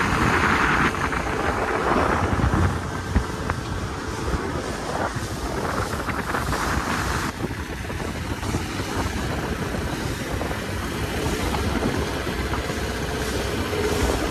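Boat underway: a Mercury 225 outboard running steadily, with wind buffeting the microphone and water rushing past the hull.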